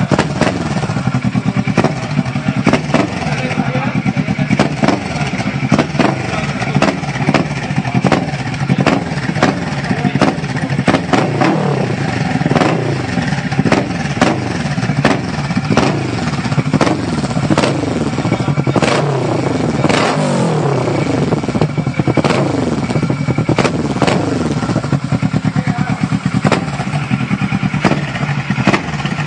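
Kawasaki ER-6n's parallel-twin engine running through an Akrapovic-style aftermarket exhaust. It idles, then is revved repeatedly, each time climbing in pitch and dropping back.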